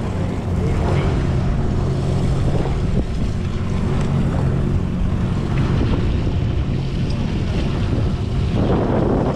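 Sportfishing boat's engine droning steadily, with wind and sea noise over the deck. A louder rush of noise comes in near the end.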